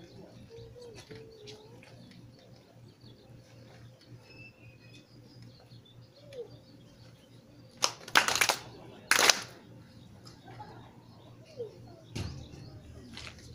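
A crowd clapping hands twice in unison, about a second apart, each clap slightly spread as the people strike at slightly different moments: the two claps of a Shinto prayer (two bows, two claps, one bow).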